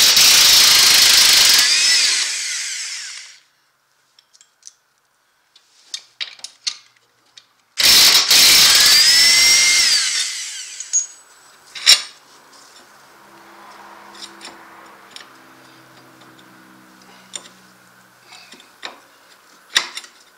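Impact wrench with a 15 mm socket run in two bursts of about three seconds each, loosening the ATV's lower sway arm bolts; the pitch of its whine rises and then falls within each burst. Afterwards come light clicks and knocks of the loosened parts being handled.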